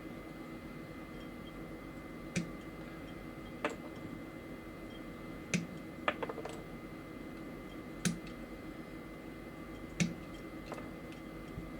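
Sharp clicks and snaps of small plastic model-kit parts being worked by hand, about one every one to two seconds with a quick cluster of little clicks near the middle, over a steady faint hum.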